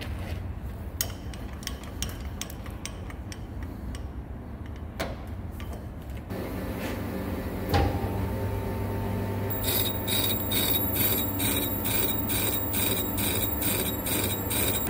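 A metal lathe starts up about six seconds in and runs steadily at 145 RPM. A few seconds later a carbide insert begins cutting the turning hydraulic cylinder piston, with a sharp tick repeating about two and a half times a second. Before the start there are a few light clicks as the work is set up.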